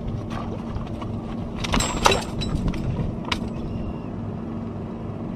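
An engine running steadily with a low, even hum. A few sharp clicks and knocks come about two seconds in, and one more about a second later.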